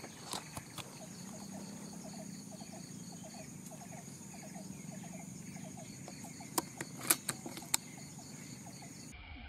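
Outdoor forest ambience: a steady high insect drone with a rapid run of short chirping calls, broken near the end by four sharp clicks in quick succession.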